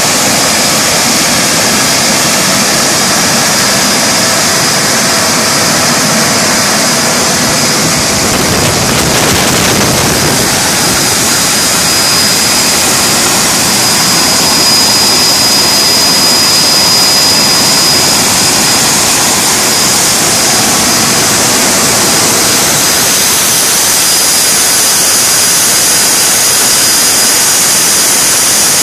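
Joy EB compressor running steadily on a test bench: a loud, even rush with a thin, steady high whistle over it. A second, higher whistle joins about three quarters of the way through.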